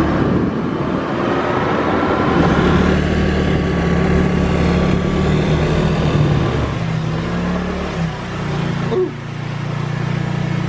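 Motor-scooter engines running while riding, with wind rushing over the microphone, then a scooter engine idling steadily.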